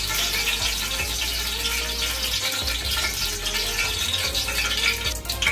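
Chopped onion sizzling in hot oil in an aluminium pot, a steady dense crackle.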